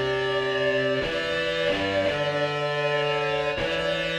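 Music: a guitar playing held chords that change every second or so.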